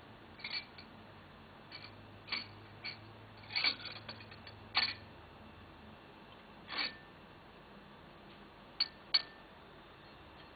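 Light clinks and clicks of dishes on a table as a civet rummages through leftover food, coming in irregular bursts with a short cluster about four seconds in and two quick clinks near the end.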